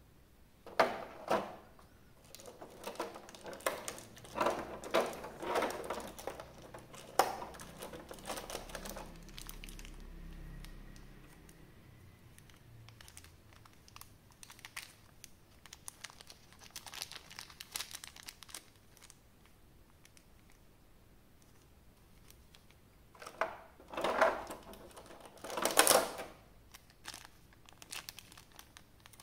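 Packaging crinkling and rustling as it is handled, in irregular bursts. It is busiest over the first several seconds, quieter and sparser in the middle, and loud again in a cluster near the end.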